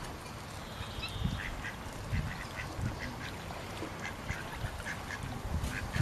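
Ducks quacking: a scattered run of short, repeated calls.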